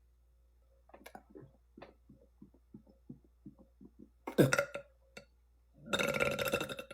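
A woman burping: a run of short soft sounds, about three a second, then a sharp short burp that drops in pitch about four and a half seconds in, and a long, loud burp near the end.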